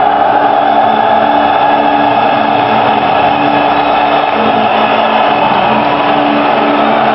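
A stadium crowd of thousands of football supporters singing a chant together, a loud, dense mass of voices holding long notes that shift in pitch every second or so.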